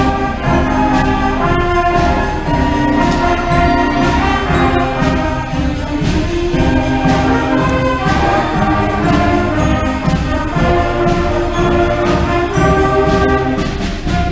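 A middle school concert band playing live, with brass and woodwinds over percussion keeping a steady beat.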